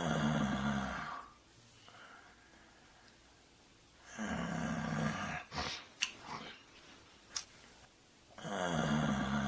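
A person snoring: three long snores about four seconds apart, with a couple of short sharp clicks between the second and the third.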